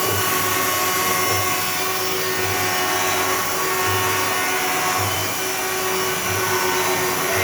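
CNC vertical machining center running: a steady whine of several held pitches over a hiss, with a soft low thump about once a second.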